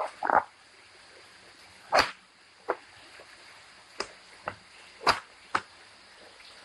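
Hard plastic toy-bike parts knocking and clicking as they are handled and fitted together: about seven separate sharp clicks, the loudest about two and five seconds in.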